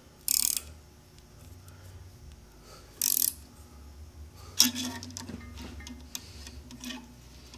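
Gear puller being fitted and tightened on a saw arbor bearing: two short bursts of metallic clicking, near the start and about three seconds in, then a sharp metal click a little later and faint ticking.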